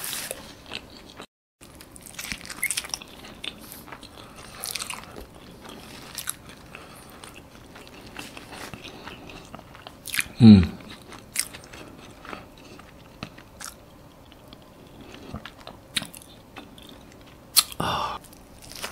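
Close-miked chewing of avocado toast with fried egg: wet mouth sounds and small crunches of the toasted bread. About halfway through there is a brief falling hum of the eater's voice.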